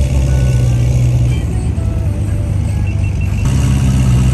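Sports car engines running at idle and low revs as cars roll through a parking lot, a steady low rumble.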